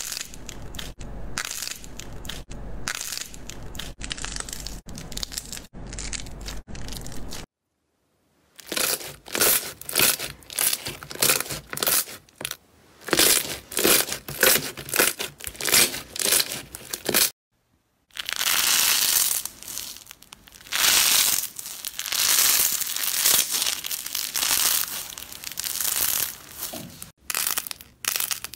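Hands squeezing and pressing slime and squishy toys, making wet squishing, crinkly sounds. Three stretches of it, split by two brief silences: a steady squishing, then separate presses about twice a second, then a denser, louder squishing.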